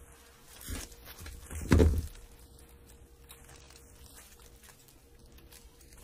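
Bicycle chain handled by gloved hands: faint metallic clicks and rattles of the links, with a louder knock just under a second in and a heavy thump at about two seconds.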